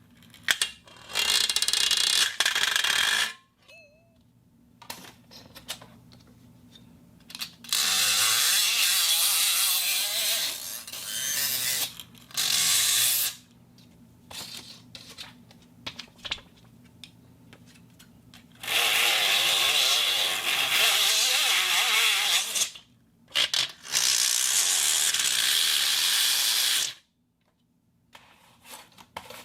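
Steel sheet being scraped in five long, harsh strokes of a few seconds each, with short pauses between them.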